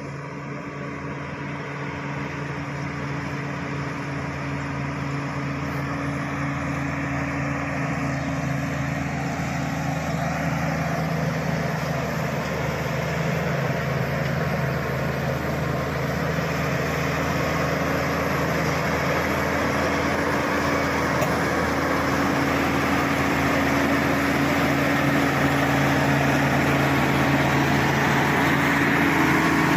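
Crawler bulldozer's diesel engine running steadily under load as its blade pushes soil and brush, growing gradually louder as the machine comes closer.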